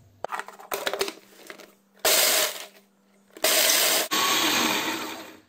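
Hard plastic clicks as the food processor's lid and pusher are fitted and locked, then the food processor pulsed in a few short bursts, its blade chopping Oreo cookies into crumbs.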